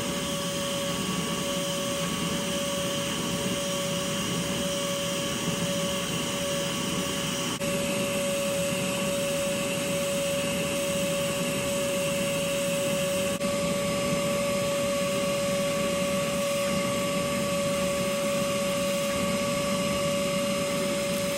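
LIGO 20-volt cordless wet/dry vacuum running steadily: a constant motor whine over the rush of air as it sucks up debris.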